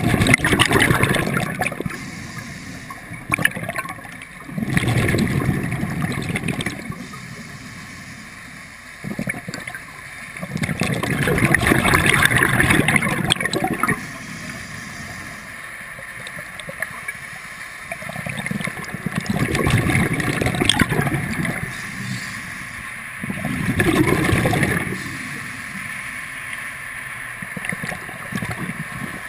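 Scuba regulator exhaust bubbles from a diver breathing underwater: a gurgling rush of bubbles lasting two to three seconds on each exhalation, five times, with quieter gaps between breaths.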